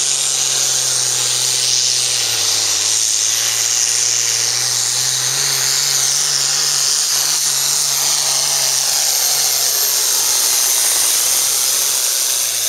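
Turbocharged diesel hot farm pulling tractor at full power hauling the weight sled, a steady high-pitched turbo whine over the engine's note.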